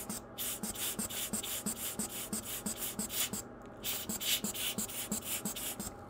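Hand-squeezed air blower bulb puffing in quick succession, about three short puffs a second, blowing isopropyl alcohol and dissolved flux off a phone circuit board.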